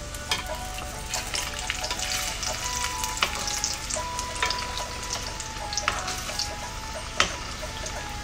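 Kachoris deep-frying in hot oil in a kadhai on a low flame, with a steady sizzle. A metal slotted spoon turning them gives several sharp taps against the pan.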